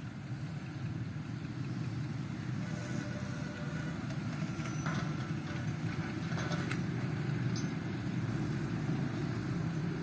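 Steady low rumble of distant engines, growing slightly louder, with a few faint short higher tones about halfway through.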